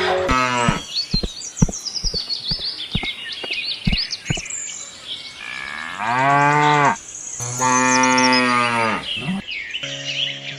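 Cow mooing: two long moos in the second half, with a shorter falling moo at the start. Birds chirp high above, and a few sharp clicks come in the first few seconds.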